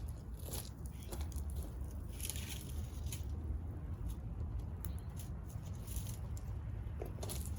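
Fire burning dead leaves and a melting plastic box fan, with irregular crackles and pops over a steady low rumble.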